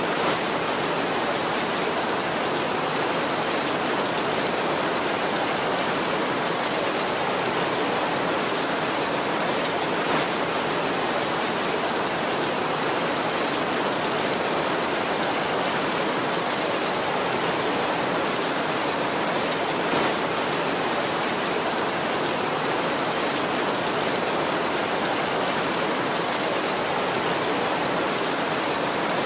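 Heavy rain falling steadily in an even hiss, with a few brief louder ticks about ten seconds apart.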